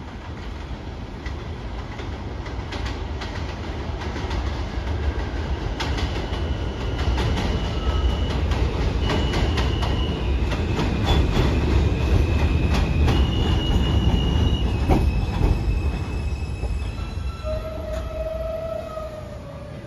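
New York City Subway train on an elevated steel line, its rumble building to a peak and then easing off. Through the middle the wheels click over the rail joints and squeal, and a drawn-out whine sounds near the end.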